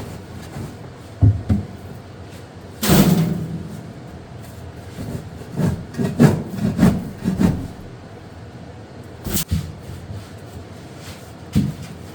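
Scattered wooden knocks and rubbing on a plywood brooder box as it is cleaned of chicken droppings: a single knock about a second in, a longer scrape about three seconds in, a quick run of knocks in the middle, and sharper knocks near the end.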